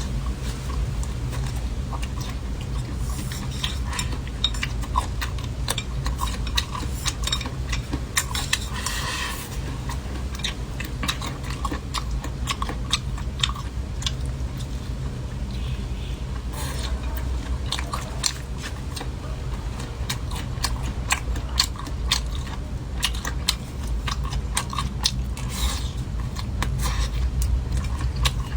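Close-miked chewing and biting of food, with many small crunches and mouth clicks, over a steady low hum.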